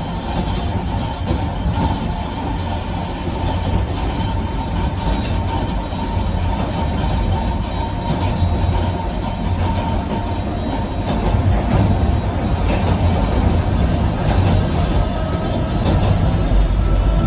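Cabin running noise of a Sangi Railway Hokusei Line Mo 275 electric railcar on its 762 mm narrow-gauge track: a steady low rumble of wheels and running gear with a faint whine. A few sharp clicks come past the middle, and it grows a little louder in the later part.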